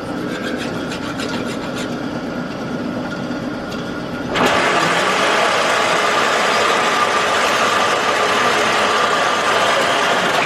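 Machine-shop machinery running steadily. About four seconds in, a louder machine starts and settles into an even hiss with a steady whine.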